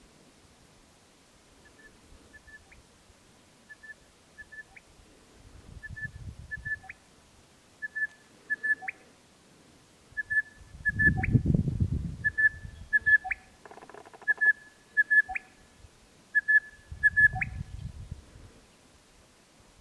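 Male crested bellbird calling: a phrase of two short notes and a sharp upward-flicked note, repeated about every two seconds and growing louder. Three bursts of low rumble come in underneath, the loudest near the middle.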